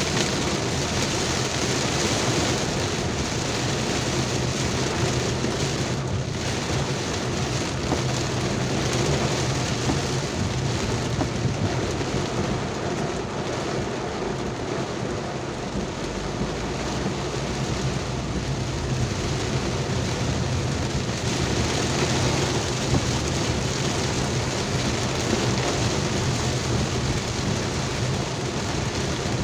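Heavy downpour: a steady, dense hiss of rain, with a low hum underneath.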